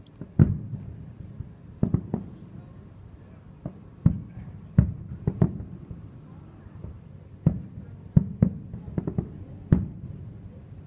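Aerial firework shells bursting at a distance: about a dozen sharp booms, each with a short echoing tail, coming irregularly and bunching into a quick run of bangs near the end.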